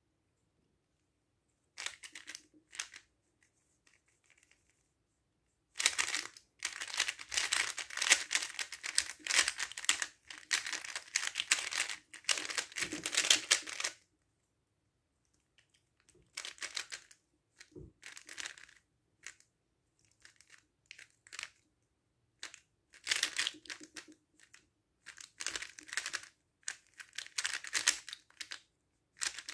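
3x3 plastic speedcube being turned fast by hand: quick clacking and clicking of its layers in bursts with short pauses between, the longest run lasting about eight seconds.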